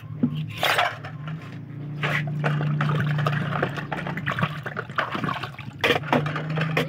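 Dishes being washed by hand in a basin: water sloshing and splashing, with a few sharp knocks of plates and utensils against each other.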